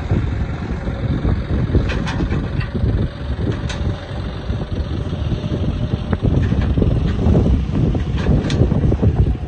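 Heavy earth-moving machine engine running with a continuous rough rumble, with a few short sharp clicks or knocks about two seconds in, near four seconds and again near the end.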